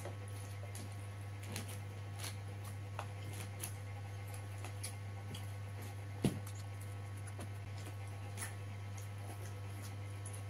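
Close-up eating sounds: a person chewing nasi Padang with small wet mouth clicks and smacks, and the hand working rice on paper wrapping, with a steady low hum underneath. One louder knock about six seconds in.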